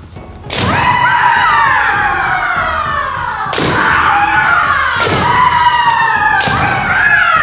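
Kendo bouts: four sharp strike-and-stamp impacts, each followed by a long shout (kiai) that falls in pitch.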